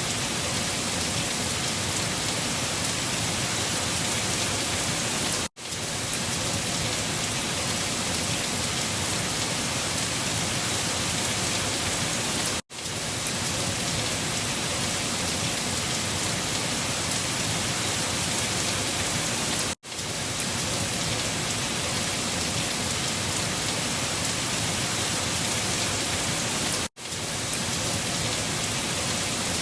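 Steady rain falling, an even hiss of drops on a surface. It cuts out for a split second four times, about seven seconds apart, where the recording loops.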